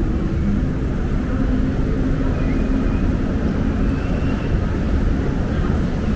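Steady low rumble of ambient background noise with faint voices mixed in.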